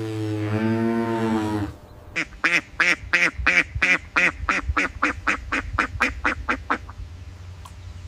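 A cow mooing, cut off about a second and a half in, then a duck quacking in a rapid run of about twenty quacks, roughly four a second, that stops near the end.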